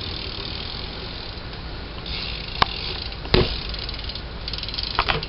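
BMX bike being ridden for tricks: a steady low rumble of tyres and wind, with sharp knocks about two and a half and three and a half seconds in and several more near the end.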